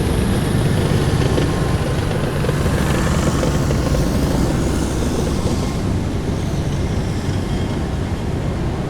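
Heavy military vehicles driving past in a column, their engines giving a loud, steady low drone that eases off slightly toward the end.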